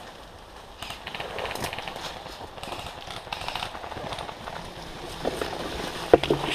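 Footsteps through woodland undergrowth, with leaves and brush rustling and crackling underfoot. A single sharp knock comes near the end.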